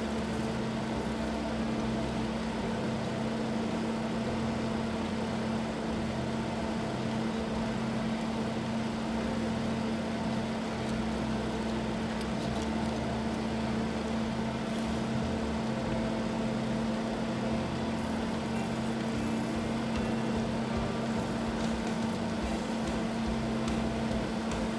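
Steady low machine hum with one constant droning tone throughout.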